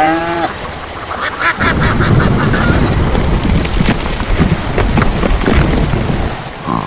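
A short pitched call that rises then falls right at the start and a quick run of chattering calls about a second and a half in, then a loud rumbling storm with scattered sharp hits for about five seconds, cutting off near the end: a thunder-and-hail sound effect.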